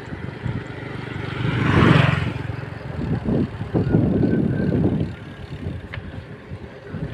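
Road traffic noise heard while travelling, with gusty wind on the microphone; a vehicle passes close by about two seconds in, its sound swelling and fading.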